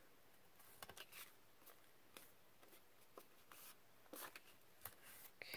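Faint, scattered light taps and rustles of paper being handled and pressed into place on a desk while a small glued scrap is positioned on a journal card.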